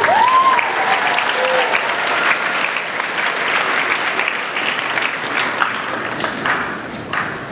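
Large indoor audience applauding, with a few whoops in the first second or so; the clapping thins out near the end.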